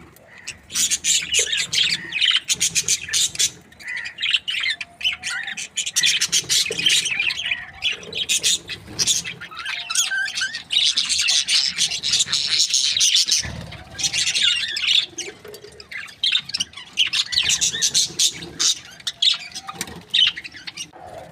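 Budgerigars chirping and chattering in a rapid, high-pitched warble, in bouts with short pauses.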